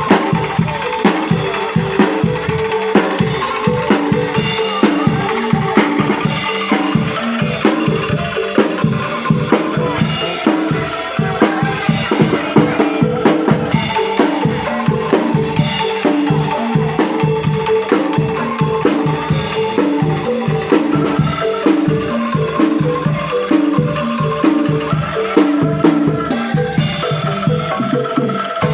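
An angklung ensemble plays a rhythmic tune, the shaken bamboo tubes rattling on each note, with drum strokes keeping the beat.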